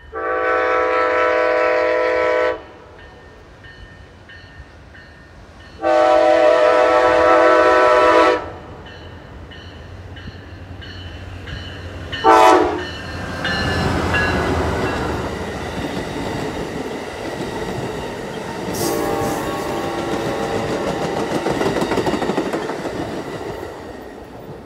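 A diesel passenger train's air horn sounds two long blasts, a short one and a last long one, the pattern blown for a crossing, as a Siemens Charger locomotive approaches. The train then runs close past with a steady rumble and clatter of wheels on rail that tails off near the end.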